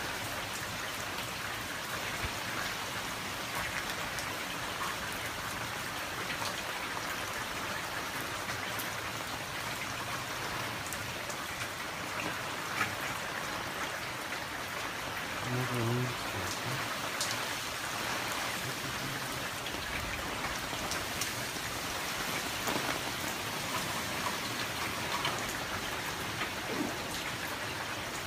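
Steady rain falling and pattering on surfaces, with scattered drips ticking through it. A brief low sound stands out about halfway through.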